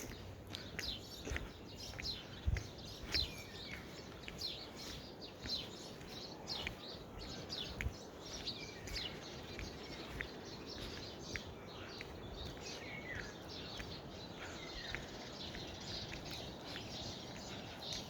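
Many small birds chirping all around, a dense chorus of short, quick, high chirps and tweets over a steady background hiss.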